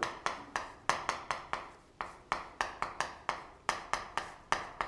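Writing strokes on a writing surface, heard as a quick, irregular run of sharp taps, about four a second, each dying away fast.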